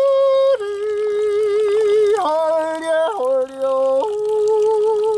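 A slow, mournful-sounding tune of long held notes, each wavering slightly, stepping between pitches about once a second.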